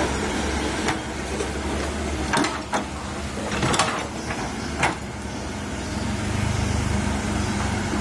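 Komatsu PC130 hydraulic excavator's diesel engine running steadily, with a handful of sharp knocks and clanks in the first five seconds. The engine note swells heavier about six seconds in, as if taking up load.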